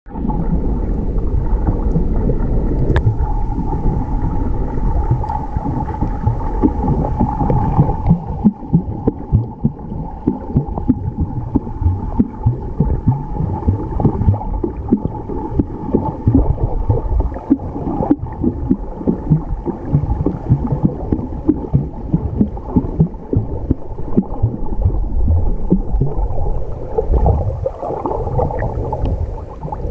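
Muffled underwater sound of shallow sea water heard through a submerged microphone: a dense low sloshing and gurgling full of small pops, with a steady hum throughout. About eight seconds in, the higher hiss drops away and the sound turns duller.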